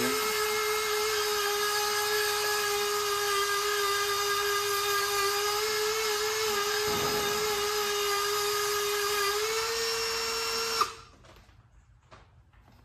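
High-speed rotary tool running steadily with a high whine, its pitch rising a little shortly before it shuts off abruptly about eleven seconds in. Faint clinks follow.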